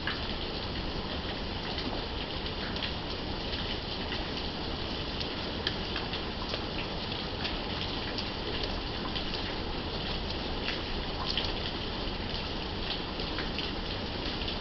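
Steady rain during a thunderstorm, falling evenly with many sharp individual drop impacts ticking on a nearby surface.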